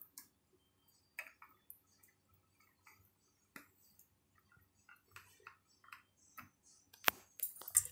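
Hands working chicken pieces in a thick yogurt marinade in a glass bowl make faint, scattered wet squelches and small clicks. A sharper click comes near the end.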